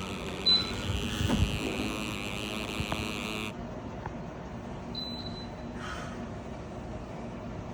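Electrolux LPE16 washing machine being set going: a short electronic beep from its panel, a few knocks and clicks, and a high hiss that cuts off suddenly about three and a half seconds in, then a second short beep.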